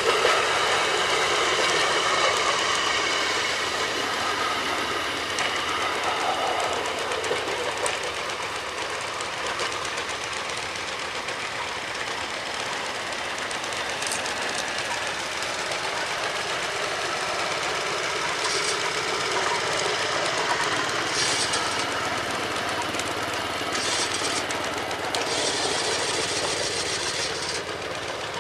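Rail speeders, small motorised rail cars, running along the track one after another, their small engines going steadily.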